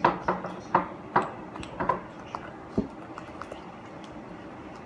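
A utensil clinking against a bowl while slime is mixed: about six separate sharp clicks over the first three seconds, then only a low background.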